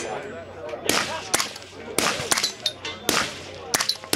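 Zenith roller-delayed rifle with a suppressor fired as a string of single shots at uneven intervals, mixed with gunfire from other lanes of the range and background voices.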